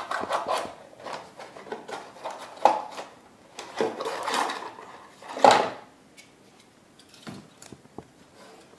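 Packaging of a retail CPU box being handled while the stock CPU cooler is taken out: irregular rustles, scrapes and small knocks, with a loud rustle about five and a half seconds in, then only a few faint clicks.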